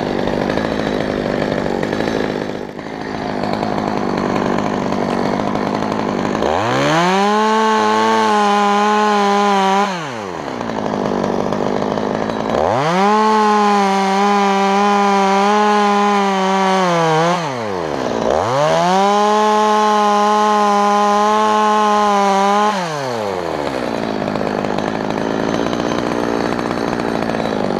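Stihl MS 200T top-handle two-stroke chainsaw idling, then run up to full throttle three times for several seconds each while cutting into an oak trunk. Each time the engine pitch climbs, holds high and steady, and drops back to idle.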